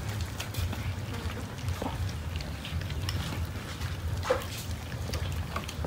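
Many cats eating cooked rice off a wooden board: scattered small chewing and lapping clicks over a low steady rumble, with one short, sharper sound about four seconds in.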